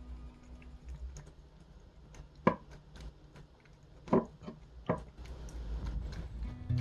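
Scattered short sharp clicks over a faint low background: three louder ones, the first about two and a half seconds in and two more close together a little past four seconds.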